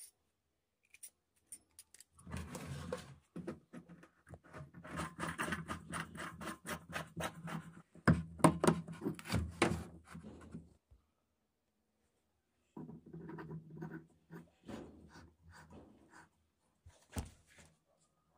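Hands working a threaded metal pipe fitting into a hole in a plastic drum: irregular scraping, rubbing and small clicks of metal on plastic. There is a pause partway through and a sharper click near the end.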